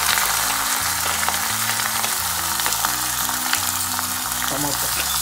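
Chopped onions sizzling as they go into hot oil in a kadai, a steady frying hiss with a few small clicks. Background music with low notes plays under it.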